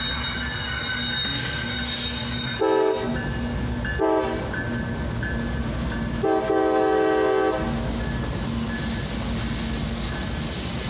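CSX freight locomotives rumbling past at a grade crossing while the lead engine sounds its horn: a short blast about three seconds in, a brief toot a second later, and a longer blast around six seconds in. The crossing bell rings steadily underneath.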